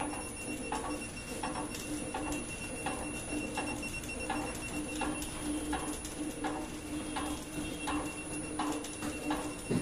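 Packaging-film winding machine running, a steady hum with a regular click about once every 0.7 seconds.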